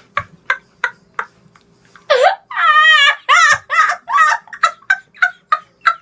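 A series of short, high calls about three a second, broken about two seconds in by a longer, rapidly warbling call, then the short calls go on.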